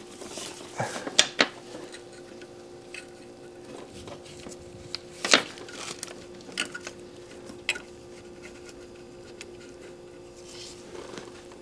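Sharp plastic clicks and small knocks of hands working a wire-harness retaining clip on the engine, trying to wiggle it loose, with a faint steady hum underneath.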